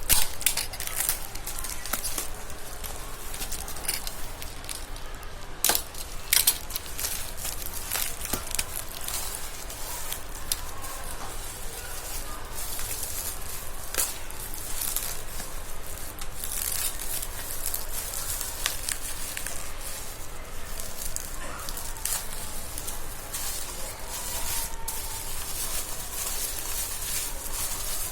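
Packaging crinkling and rustling as it is handled and opened, with scattered sharp clicks and taps.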